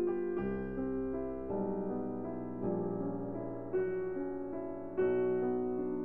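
Slow, gentle background piano music, a new chord struck about every second and left to ring.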